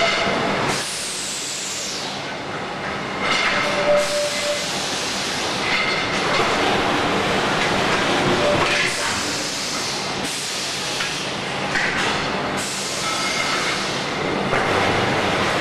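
Industrial machinery running loudly, a dense mechanical din with hissing bursts that swell and fade every few seconds.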